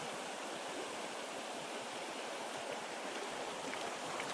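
Small mountain trout stream flowing, a steady, even rush of water.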